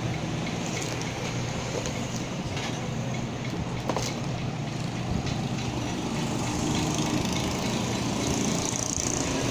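Steady low mechanical rumble with faint ticks and one sharp click about four seconds in.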